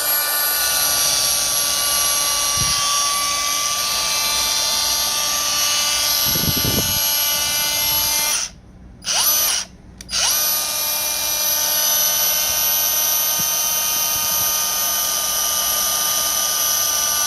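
Brand-new Milwaukee M18 CAG125 cordless angle grinder running unloaded at full speed, a steady high whine. It stops about eight seconds in, is blipped on for a moment, then runs steady again. The owner says it doesn't sound right.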